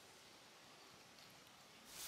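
Near silence: faint steady background hiss, with a louder noise starting right at the very end.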